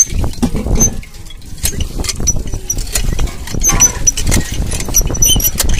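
Iron hand pump being worked: the lever and pump rod clank and squeak with each stroke while water gushes from the cloth-wrapped spout into a steel pot.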